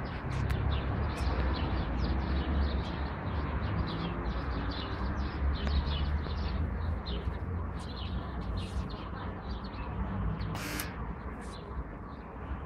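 Outdoor background: a low steady rumble with many short, high chirps through it, and a brief hiss about ten and a half seconds in.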